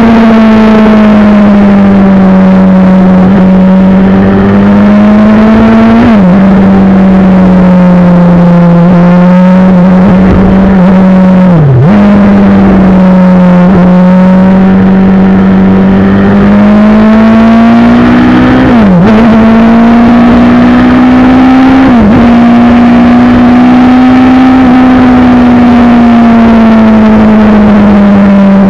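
Motorcycle engine running steadily at road speed, heard loud from an onboard camera. Its note rises and falls gently, and four times it dips sharply for a moment before recovering.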